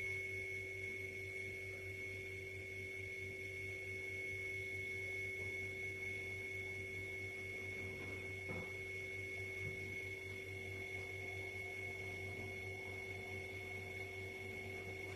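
Steady low hum with a thin high whine above it, unchanging throughout, and a faint knock about eight and a half seconds in.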